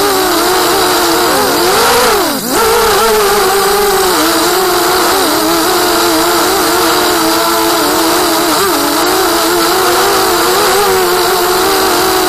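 Racing quadcopter's electric motors whining loudly, the pitch wavering constantly as the throttle moves. About two seconds in, the pitch climbs, then drops sharply and comes straight back up, as with a quick throttle chop and punch.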